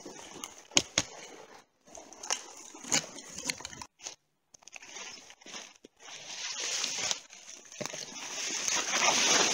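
Someone forcing a way on foot through dense conifer branches and dry undergrowth: branches brushing and swishing against clothing and the camera, with irregular twig snaps and crackling steps. The rustling grows heavier over the last few seconds.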